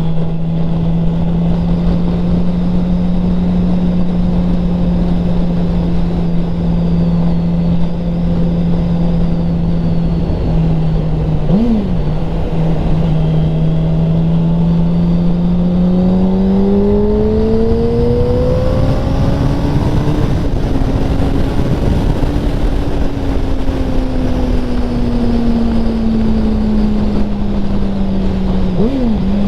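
2007 Yamaha R6's 600 cc inline-four engine running at steady highway revs under a heavy rush of wind noise, with a quick throttle blip about twelve seconds in and another near the end. About halfway through, the revs climb for a few seconds as it accelerates, hold, then slowly ease back down.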